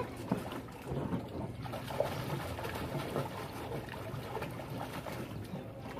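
Water splashing and sloshing in an inflatable paddling pool as children move about in it, with small irregular splashes throughout.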